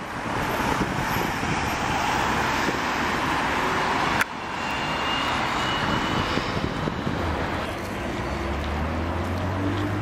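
Road traffic: cars driving around a busy square, a steady noise of engines and tyres that breaks off abruptly about four seconds in, with a low engine hum coming in near the end.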